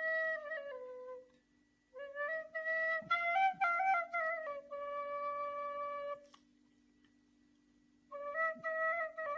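A ney flute plays a slow solo melody in short phrases. It holds long notes, moves in small ornamented steps and falls silent twice between phrases, the second pause about two seconds long.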